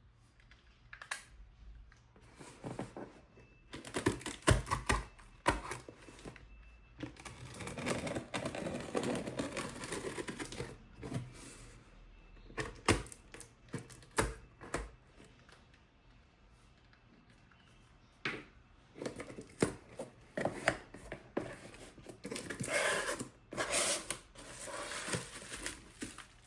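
Packaging of a skincare cleanser being handled and opened: repeated sharp clicks and taps, with two longer stretches of crinkling and tearing.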